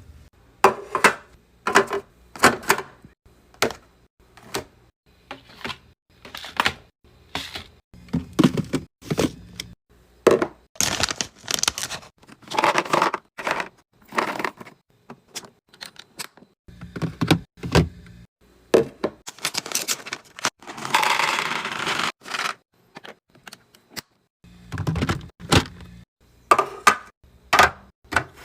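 Food containers and packaging being handled while a fridge is restocked: a steady run of clicks, knocks and crinkles as items are set down, with a longer noisy stretch about twenty seconds in.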